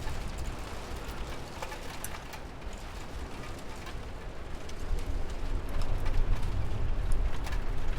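Steady rain ambience: an even patter of rain with scattered single drips or ticks over a deep low rumble, which grows louder about five seconds in.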